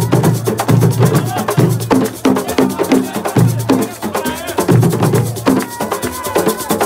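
Percussion ensemble playing a fast, dense drum rhythm: many sharp, cracking strokes over heavy low drum beats.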